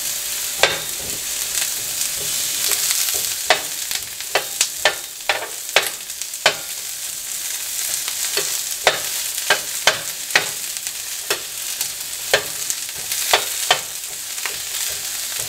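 Sliced onions sizzling in oil on a stovetop griddle, with a metal bench scraper clicking and scraping against the griddle surface again and again as the onions are tossed and spread.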